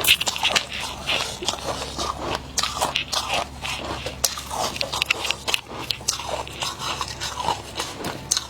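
Close-up crunching and chewing of fluffy freezer frost being eaten, with many quick, irregular crisp crunches.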